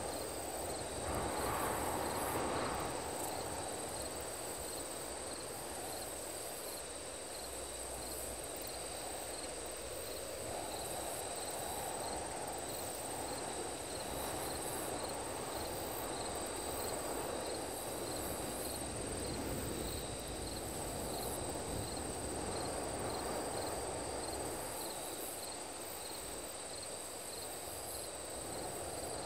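Night insect chorus of crickets in a layered ambient soundscape: a steady high trill with regular short chirps, over a continuous low wash of noise.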